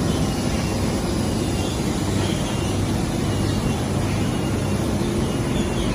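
Steady hum and rumble of enclosed automated production-line machines, with faint steady tones over an even low noise and no distinct clicks or impacts.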